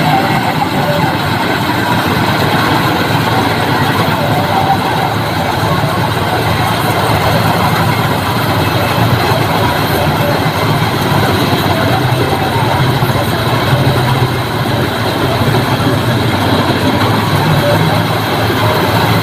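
John Deere combine harvester's engine and threshing machinery running steadily as it harvests paddy.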